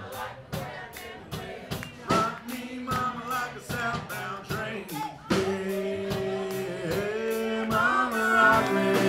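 Live country band with acoustic guitar and fiddle, the crowd singing along to the chorus and clapping in time over a sparse stretch; about five seconds in the full band comes back in, louder, with long held notes.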